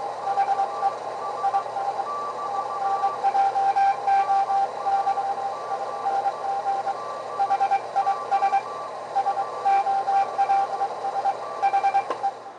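Morse code (CW) coming from a shortwave radio: a tone keyed on and off in dots and dashes over steady band hiss, with a second, fainter signal keying at a slightly higher pitch.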